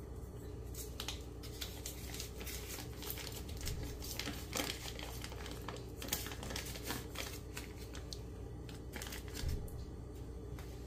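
Paper wrapper being peeled off a stick of butter, crinkling and crackling in many short, irregular bits.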